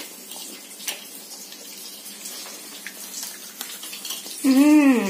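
Salt fish frying in oil in a pan, a steady sizzle, with a sharp click about a second in. Near the end a short voiced hum, rising then falling in pitch, is the loudest sound.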